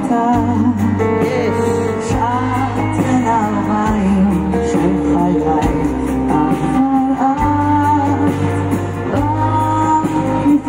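A woman singing a pop ballad live with a rock band: keyboard, electric and bass guitars and a drum kit, heard from the audience.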